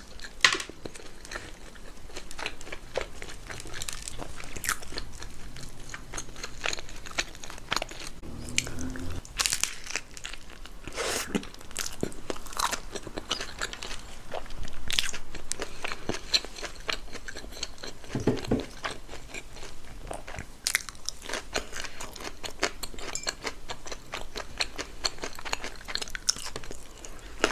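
Close-miked eating of a hamburger and fried potatoes: irregular crunchy bites and steady chewing.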